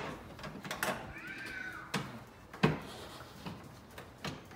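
Plastic clicks and knocks as a Porsche 996 headlight unit is worked loose from its housing in the front wing, the loudest knock a little past halfway. About a second in there is a short high squeak that rises and falls.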